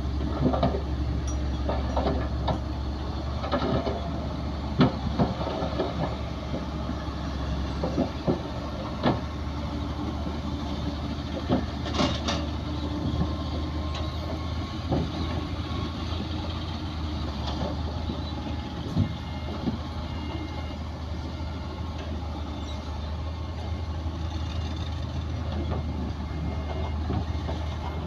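Heavy diesel earthmoving machinery running at work: a steady low engine drone with scattered metallic clanks and knocks.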